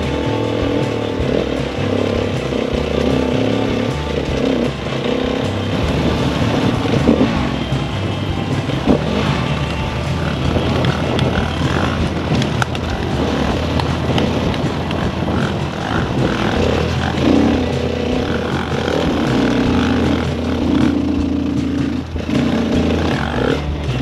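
Dirt bike engine running and revving as the bike rides over rough dirt trail, mixed with background music with a held bass line.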